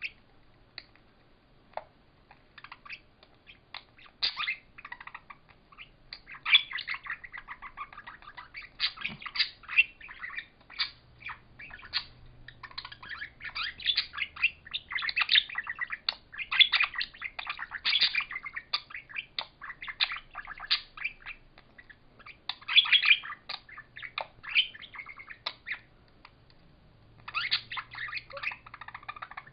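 Two budgerigars chattering and chirping in fast bursts, with many sharp clicks, as the pair squabble. The chatter comes and goes, with a short lull near the start and another shortly before the end.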